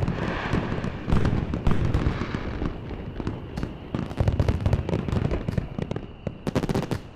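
Aerial fireworks bursting one after another: a string of sharp bangs with quick crackles between them, the loudest just after a second in and again around four seconds.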